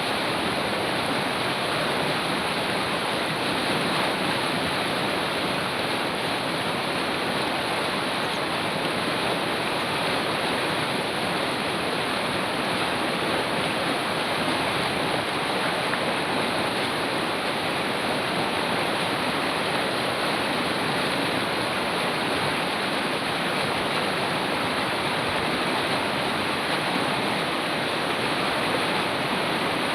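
River water rushing steadily, a constant, unbroken wash of flowing water with no change in level.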